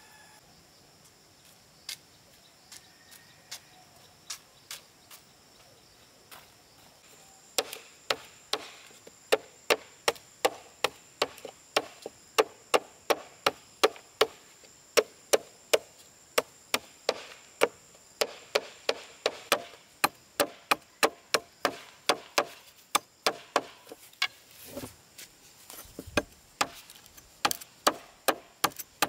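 A blade chopping at the end of a bamboo pole to sharpen it into a stake point, each stroke a sharp knock into the wood. A few scattered strokes come first, then from about a quarter of the way in a steady run of about two chops a second.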